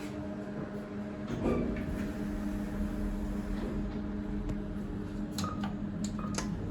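Kone MonoSpace lift with an EcoDisc gearless machine, running with a steady droning hum of several fixed pitches, from a lift whose bearings are worn. A knock comes about one and a half seconds in, and a few sharp clicks come near the end.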